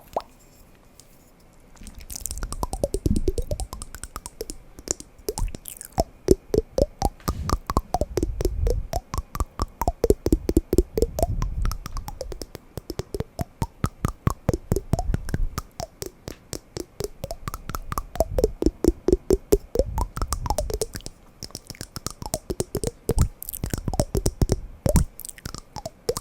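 Wooden blocks knocked and tapped together in quick runs of knocks, many a second, rising and falling in waves after a quiet first two seconds.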